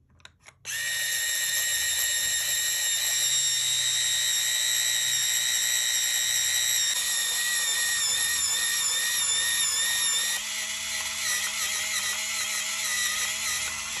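MAGICDO rechargeable electric pencil sharpener's motor whirring as it sharpens a pencil, starting about a second in and cutting off near the end. The high whine shifts pitch twice partway through and wavers.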